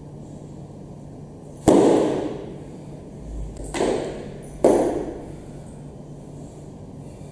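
A loaded barbell's steel plates clank and ring three times as the bar is jerked overhead and lowered back onto the shoulders: one loud clank about a second and a half in, then two more close together about a second apart.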